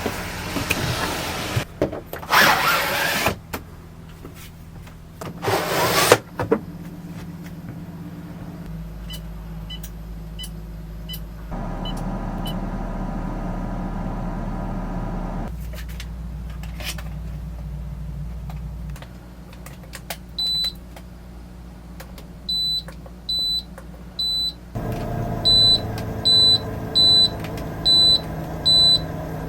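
A motor vehicle's low running hum with two loud rushing noises early on. Near the end comes a series of short, high electronic beeps: first three, then five louder ones at an even pace.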